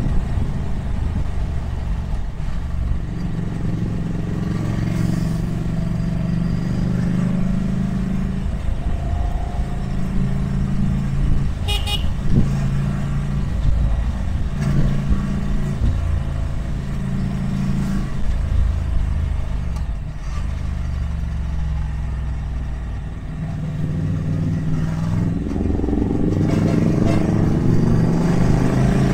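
Ducati Monster 797's air-cooled L-twin engine running under way, its pitch shifting with throttle and gears and climbing near the end as it accelerates. A brief horn toot sounds about twelve seconds in.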